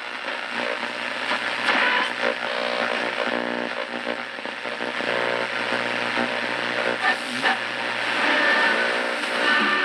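Hallicrafters S-38D tube shortwave receiver tuned slowly across the 49-metre band through its speaker: a steady wash of static with fragments of station audio and whistle tones fading in and out as the dial moves.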